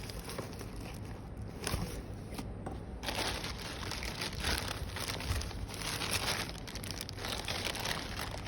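Packaging crinkling and rustling as it is handled during an unboxing. The crinkling grows denser about three seconds in.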